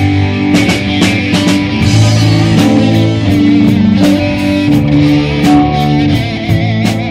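Live band playing amplified music: guitar notes held and bent over a drum kit, with frequent cymbal and drum hits.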